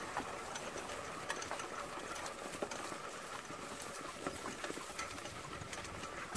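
Horse-drawn cart travelling over snow: a steady hiss with scattered, irregular light clicks and taps from the harness, hooves and wheels.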